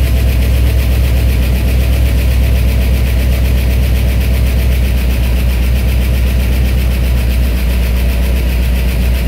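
1968 Ford Bronco engine on a FiTech Go Street throttle-body fuel injection system idling steadily, just after its first start in ten years. The idle eases from about 950 to about 900 rpm as the EFI settles it to a low idle, which the owner takes for the system learning.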